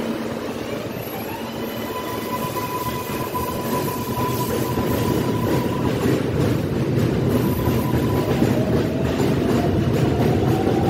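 New York City Subway R143 cars on the L line pulling out and gathering speed, getting louder throughout. The traction motors give a steady whine, then a second whine that climbs in pitch near the end, over the rumble and clicking of the wheels on the rails.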